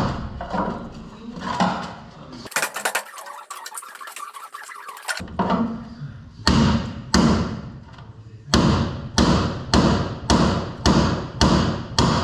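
Hand hammer striking metal, chiselling rivets off a Kenworth C540 truck cab's firewall. There are a few uneven blows at first, a few seconds of thin crackling, and then a steady run of ringing blows about every 0.6 s.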